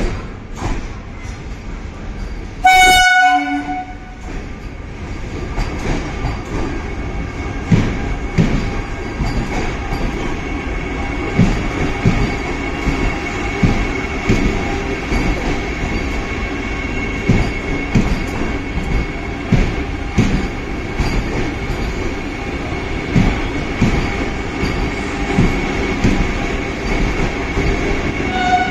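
Vande Bharat Express train set sounds a short horn blast about three seconds in. Its coaches then roll past alongside the platform with a steady rumble, regular clacks of wheels over rail joints and a steady high whine. Another short horn note sounds near the end.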